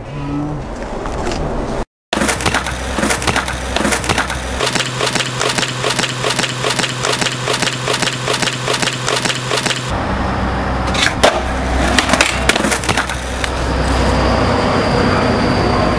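Skateboard rolling over rough concrete, its wheels and deck giving a steady run of clicks about four a second, with a few sharp knocks of the board about two thirds of the way through.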